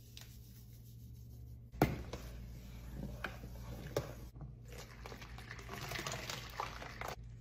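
Quiet kitchen handling: a wooden spoon knocking a few times against an enamel stockpot as it stirs, then liquid pouring from a glass measuring jug through a funnel into a bottle near the end.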